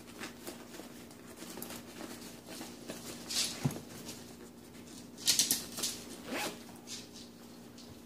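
Zipper on a canvas backpack's pocket being pulled in a few short runs, the loudest about five seconds in.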